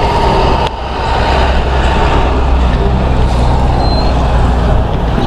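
Loud, steady rumble of a heavy road vehicle such as a truck or bus running close by, with its engine's low drone underneath road noise.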